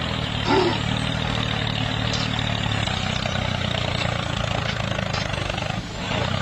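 A tractor engine running steadily, a low even engine sound with a hiss above it.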